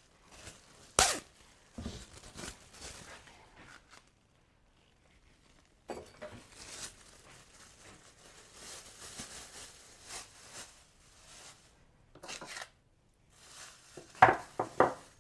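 Plastic bags rustling and crinkling in irregular bursts, with a sharp knock about a second in and a few quick knocks near the end.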